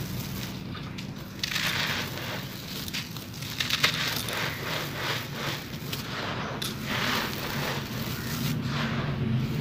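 Dry sand-cement lumps crushed by hand: gritty crunching and crackling, with powder and grit pouring through the fingers in a dry, trickling hiss. It comes in several waves, with a steady low hum underneath.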